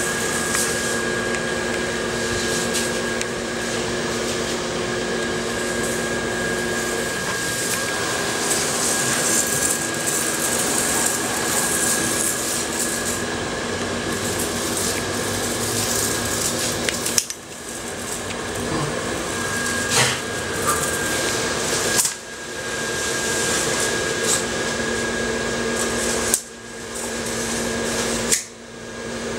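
Steady whirring hum of an inflatable lawn ornament's blower fan. In the second half a few sharp clicks come, each followed by a sudden brief drop in the sound.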